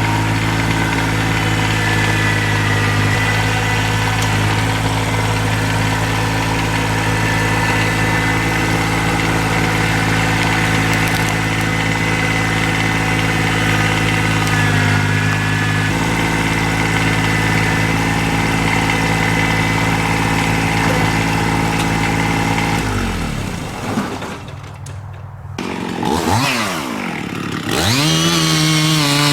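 Small engine running steadily at a constant speed. About 23 seconds in it throttles down, revs down and up a few times in quick swoops, then settles back to a steady run near the end.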